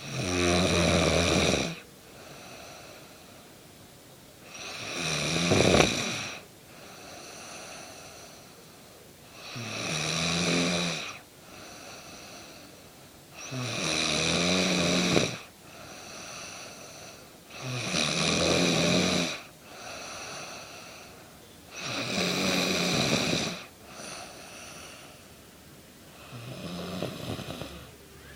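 A woman snoring in her sleep: seven loud snores about every four seconds, each followed by a quieter breath.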